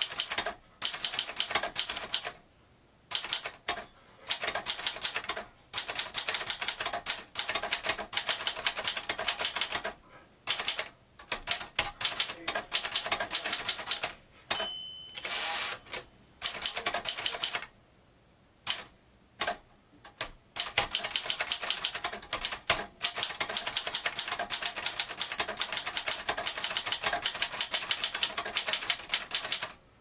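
1949 Moskva Model 2 portable typewriter being typed on: runs of rapid keystrokes, type bars snapping against the platen, broken by short pauses. About halfway through, the margin bell rings briefly and the carriage is returned by hand.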